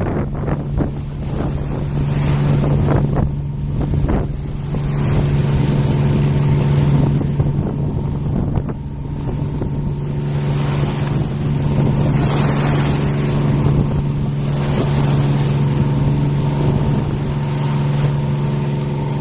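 Strong gusting wind buffeting the microphone and tossing the trees, over a steady engine drone from a boat on the river.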